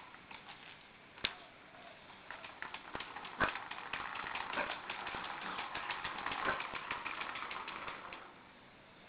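Rapid, dense clicking and clattering of a dog playing with a plastic toy scooter on concrete. Two sharp clicks come first, then the clatter runs thick from about two seconds in and stops about a second before the end.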